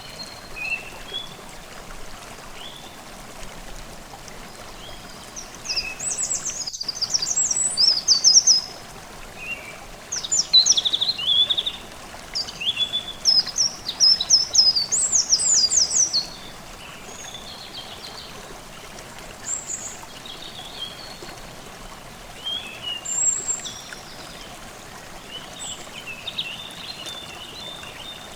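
Forest stream babbling steadily while songbirds sing over it in quick, high, falling phrases, busiest from about six to sixteen seconds in.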